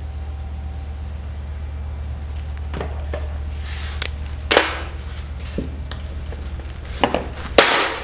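Dry-erase marker scratching across a whiteboard in a few quick strokes, then several sharp knocks and clacks as game pieces are set against the board, the loudest near the end. A steady low hum runs underneath.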